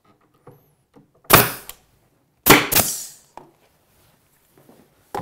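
Power stapler firing staples into plywood to tack a cabinet's rear stretcher in place: two sharp shots about a second apart, with a few faint knocks between.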